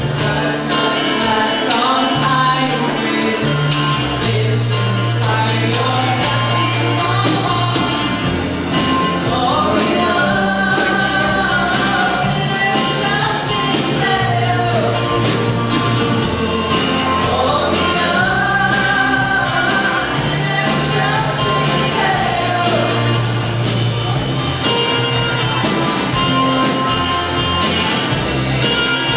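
Live band playing a song, with singing over a drum kit, electric and acoustic guitars and keyboard. A bass line steps between notes every second or two under the voices and steady drum hits.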